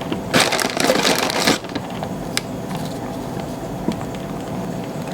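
Vanilla wafers being handled and laid in a baking dish: a burst of crinkling in the first second and a half, then a couple of light clicks.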